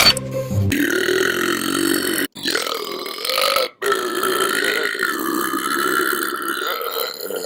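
A person burping: long drawn-out burps one after another, each broken off sharply. The last runs well over four seconds.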